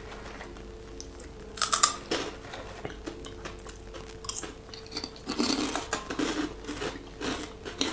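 A person biting into crunchy pork rind and chewing it. There is one crisp crunch about two seconds in, then a longer run of crunchy chewing in the second half.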